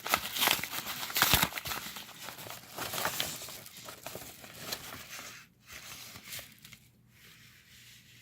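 Packaging crinkling and tearing as it is opened and handled by hand, dense and busy at first and dying down to light rustling about five seconds in.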